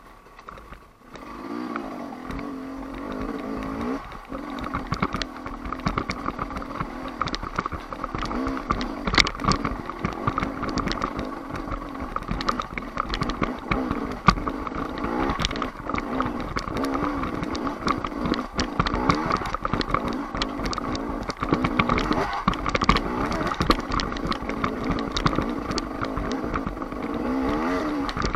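KTM 300 XC two-stroke enduro motorcycle engine, coming up about a second in and then revving up and down over rough ground, with frequent knocks and clatter from rocks under the bike.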